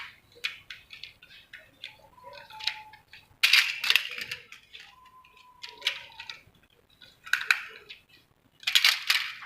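Hard plastic toy racing-track pieces being handled and pressed together: scattered clicks and knocks, with louder clattering bursts a few seconds in and again near the end.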